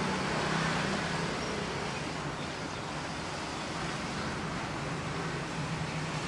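Light drizzle falling steadily, an even soft hiss, with a low rumble underneath that swells and fades.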